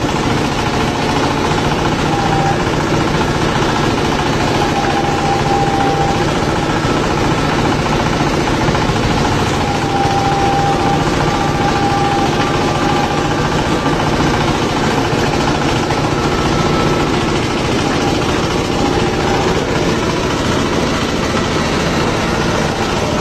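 Coconut husk peeling machine running steadily: a loud, continuous mechanical drone with a rapid low pulsing and a thin whine that comes and goes.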